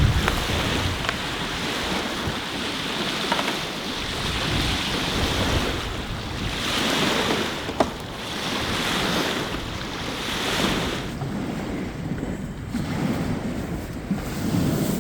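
Outdoor wind blowing and buffeting the microphone, with a rushing noise that swells and fades every few seconds and a few small clicks, one sharper about eight seconds in.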